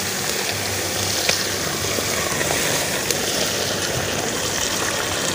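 Milk pouring steadily in two thin streams from plastic milk packets into a metal cooking pot, splashing and foaming onto the milk already in it.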